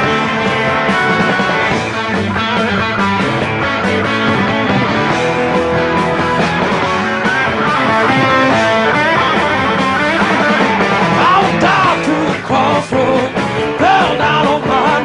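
Live Southern rock band playing, with electric guitars over bass and drums. Over the second half, high notes waver and bend in pitch.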